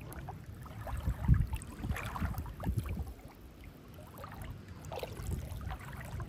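Shallow river water sloshing and splashing in uneven surges as a person wades and sweeps a metal detector's search coil through it underwater.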